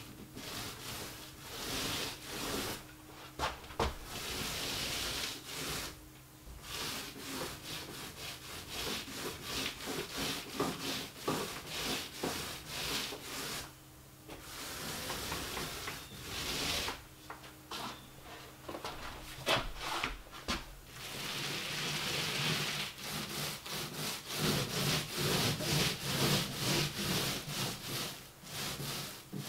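Paint roller on an extension pole rolling paint onto drywall: a wet swishing rub in repeated strokes, broken by short pauses as the roller is moved to a new spot.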